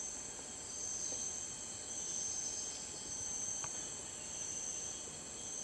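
Rainforest insect chorus: a continuous high-pitched trilling made of several steady tones that swell and fade slightly.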